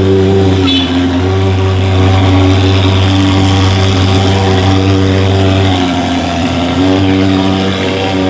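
Thermal mosquito fogging machine running with a loud, steady buzz. It wavers briefly about six seconds in.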